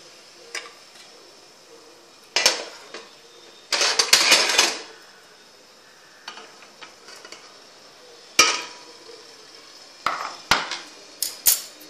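Aluminium idli steamer lid and idli plates clanking and clattering as the cooked idlis are taken out of the steamer with a metal plate-gripping tongs: a scattering of sharp metal knocks, with a longer rattle about four seconds in.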